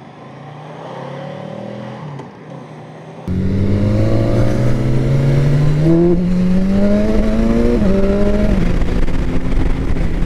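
Motorcycle engine pulling away. A low, quieter hum for the first three seconds, then much louder from about three seconds in as the engine climbs steadily in pitch under acceleration, with a drop in pitch at a gear change about eight seconds in.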